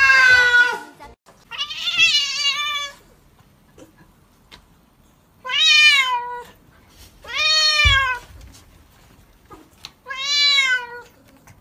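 Wet domestic cats meowing in protest at being bathed: five long meows, each rising then falling in pitch, with a soft low bump during the fourth.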